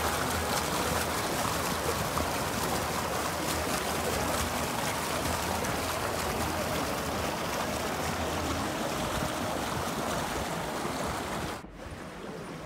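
Water running steadily down a narrow stone-lined channel and spilling over a small step. The sound cuts off abruptly near the end, leaving quieter background noise.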